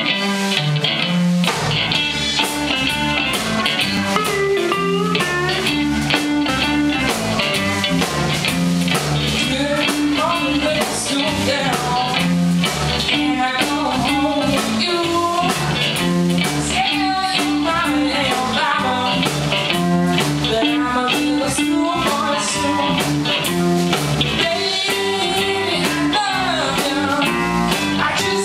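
Live blues-rock band playing electric guitars, electric bass and drums, with a lead guitar line bending its notes over a steady bass pattern.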